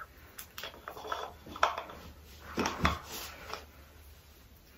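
Light clicks and short scrapes of a small cosmetic cream jar being handled and its screw lid twisted open, scattered over about three seconds.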